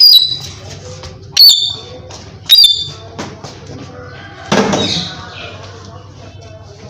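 Indian ringneck parakeet giving three short, sharp, high-pitched squawks about a second apart, followed by a longer, harsher, noisier burst about four and a half seconds in.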